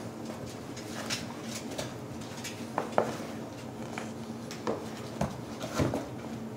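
Doberman puppy digging at and biting a fabric dog bed: scattered scratches, knocks and thumps about a second apart, coming more often near the end.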